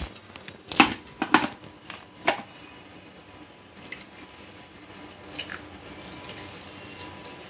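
Ground coconut milk being strained, the liquid pouring and dripping through a strainer, with a few sharp knocks in the first couple of seconds.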